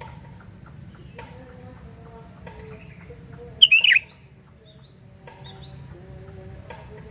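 Sooty-headed bulbul (kutilang) giving one short, loud call about halfway through, its notes falling in pitch. Fainter high chirps and a steady low hum run underneath.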